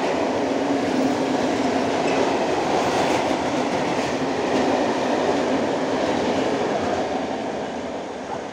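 Open-top coal wagons of a freight train rolling past, a steady noise of steel wheels on the rails. It begins to fade about seven seconds in as the end of the train goes by.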